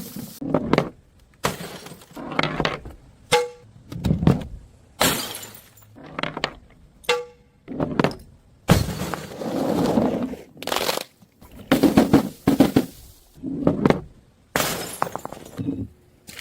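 Glass bottles breaking one after another, over a dozen separate smashes and crunches, a couple of them with a brief ringing tone from the glass.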